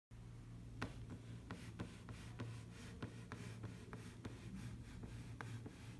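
A series of light, irregular ticks and taps, about two or three a second, over a steady low hum.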